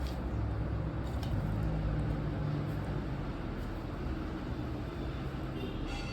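Steady low background rumble, like distant traffic, with a faint click about a second in and a brief faint ringing clink near the end.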